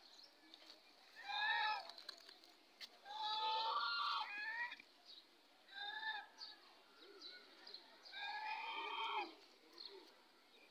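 White domestic geese honking in four short bouts of calls, a second or two apart.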